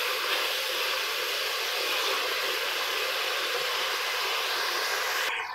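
Chicken pieces, tomatoes and green chillies frying in oil in a karahi: a steady, even sizzle that cuts off suddenly near the end.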